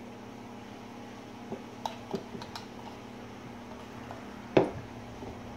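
Hoppe's No. 9 solvent bottle and small rifle parts handled on a plywood workbench: a few light clicks about two seconds in, then one sharper knock near the end, over a faint steady hum.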